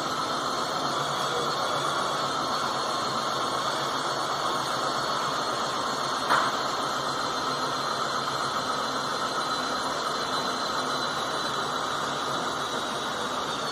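Motor-driven flap mechanism of an A-26 Invader running steadily as the wing flap travels, a whirring gear drone with a faint high whine. One sharp click about six seconds in.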